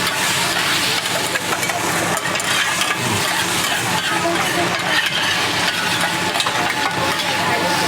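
Stir-frying on a hot teppanyaki iron plate: a metal spatula scraping and clicking against the plate while food sizzles, over a steady low hum.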